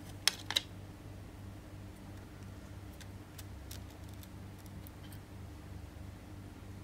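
Small clicks and ticks of hands handling a phone display assembly and its plastic protective film: two sharper clicks about half a second in, then scattered faint ticks, over a low steady hum.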